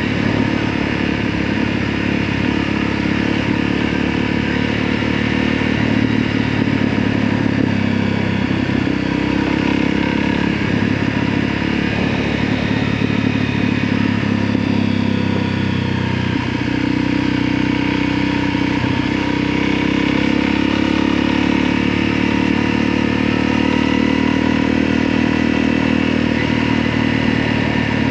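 An engine running steadily with several held tones, the pitch pattern shifting slightly about halfway through.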